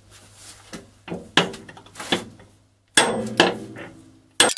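A series of sharp metal knocks and clanks, some ringing briefly, as a steel clutch-release cross-shaft is worked loose and drawn out of an R380 gearbox's clutch fork and bell housing.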